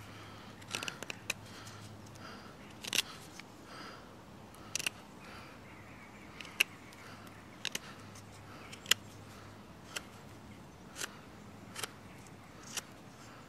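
Casström No 10 Swedish Forest Knife carving a green stick held in the hand: a dozen or so short, sharp cuts of the blade into the wood at irregular intervals, roughly one a second.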